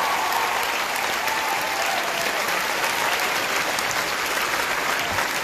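Large audience in a hall applauding, a steady dense clapping that holds at an even level throughout.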